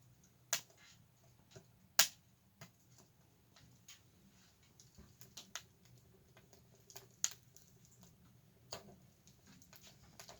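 Firewood burning in a camping wood stove, giving sparse, irregular sharp pops and crackles; the loudest snap comes about two seconds in.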